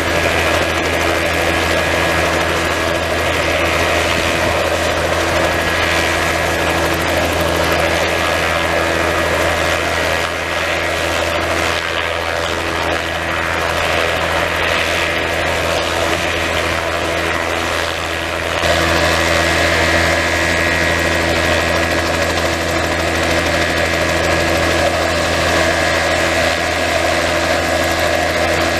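Crop-spraying helicopter running at ground idle, its two-blade rotor turning, while it sits on the nurse truck being refilled. The engine and rotor sound is steady, dipping slightly through the middle and stepping back up about two-thirds of the way through.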